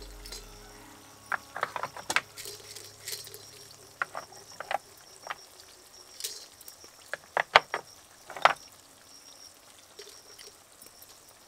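Whole dry spices dropping into an empty iron kadai: cinnamon sticks, star anise, cardamom pods, cloves and mace landing on the metal in small clusters of light clicks and rattles.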